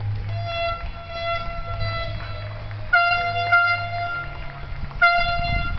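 A horn sounding three long, steady blasts on one high note, the last cut off at the end.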